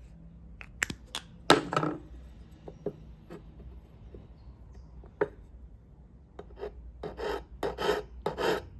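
Hand file rasping along the cutting edge of cuticle nippers in a run of short, quick strokes that start about two-thirds of the way in, sharpening the edge. Before that, a few sharp clicks from the tool being handled.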